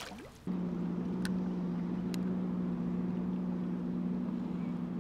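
Steady low motor hum with two or three even tones. It starts suddenly about half a second in and holds level.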